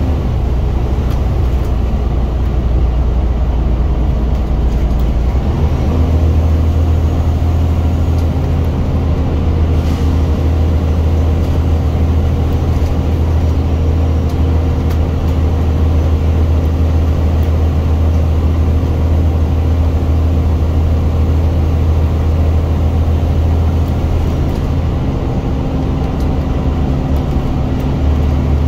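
Scania single-deck bus diesel engine under way, heard inside the cabin from the rear seats. Its low, steady note steps up about five seconds in, holds for most of the time, and eases back down near the end.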